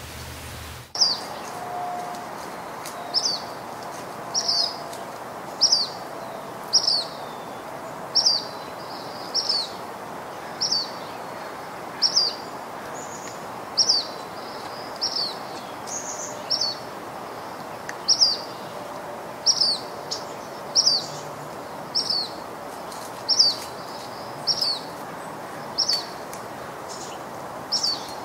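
A bird calling with a short, sharp, high chirp, repeated steadily about once a second, over a steady hiss of outdoor background.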